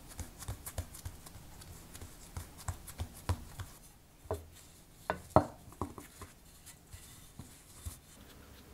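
Bread dough being patted flat by hand on a countertop, then rolled out with a wooden rolling pin: a run of soft quick taps, then a few sharper knocks, the loudest about five seconds in.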